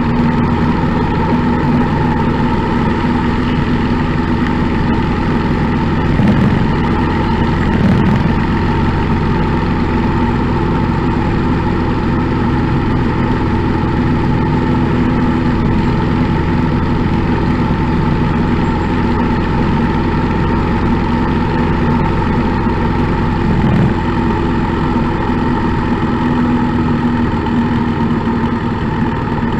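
Motorcycle engine running steadily at cruising speed with wind rush, heard from a camera mounted on the bike behind its windshield.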